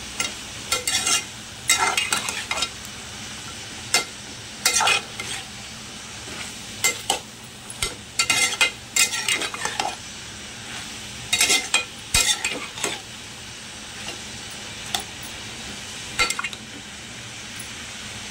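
Steel spatula scraping and clinking against the sides of an aluminium pot as chicken and vegetables are stirred, in irregular strokes that stop a couple of seconds before the end. Under it, a steady low sizzle of the food frying.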